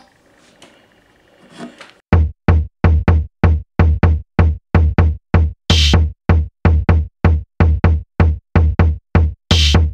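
Samsung Galaxy phone's vibration motor buzzing in short, rapid pulses, about four a second, against a hard surface as its alarm vibration pattern. The pulses start about two seconds in, and two of them sound longer and harsher, one a little before the middle and one near the end.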